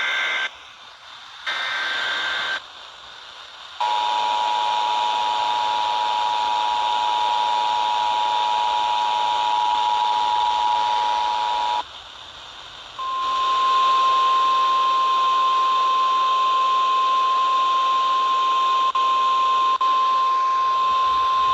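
Emergency Alert System broadcast tones over radio hiss: two short warbling SAME digital data bursts, then the two-tone EAS attention signal held for about eight seconds, then after a short pause the single 1050 Hz NOAA Weather Radio alert tone for about nine seconds. Together they announce a new flash flood warning.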